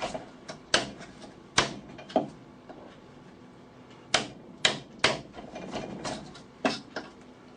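Wood chisel being struck to chop a mortise in hardwood: about nine sharp knocks in irregular groups, with a pause of about two seconds in the middle.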